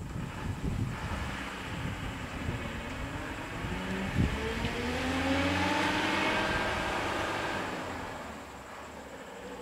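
Motor vehicle engine running, then speeding up with its pitch rising for a few seconds before fading away. A single sharp knock comes about four seconds in.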